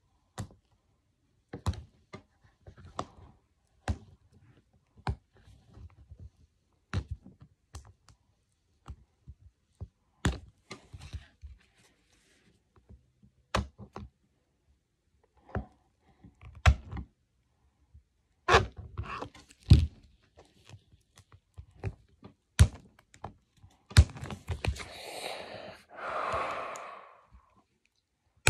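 Hard plastic toy capsule being handled and pried at to get it open: irregular clicks, taps and knocks, with a longer crinkly rustle a few seconds before the end.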